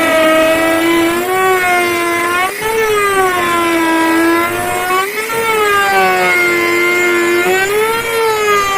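CNC router's rotary-tool spindle whining steadily while cutting, its pitch rising and falling every two to three seconds, with brief dips about two and a half and five seconds in.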